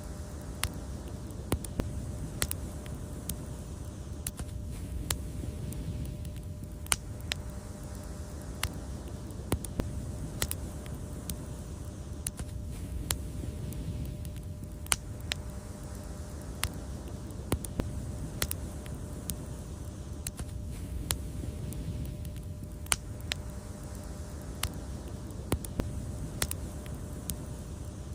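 Wood fire crackling: irregular sharp pops and snaps, several a second, over a steady low rumble of burning flames.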